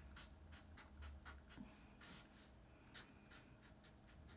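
Faint scratching of a marker pen writing out an equation: short strokes in quick succession, a few a second, the strongest about two seconds in.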